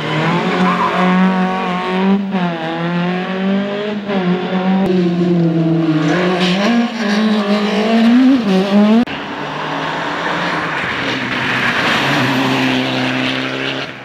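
Rally car engines at full throttle as the cars pass, the pitch climbing and dropping sharply with each gear change, one car after another. After about nine seconds the engine note gives way to louder tyre and road noise, and a steadier engine tone follows near the end.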